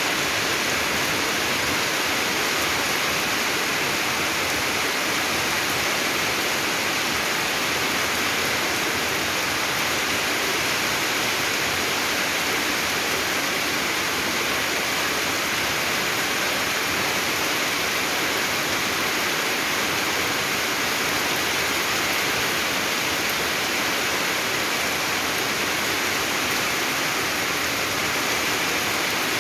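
Heavy rain falling as a steady, dense hiss that doesn't change.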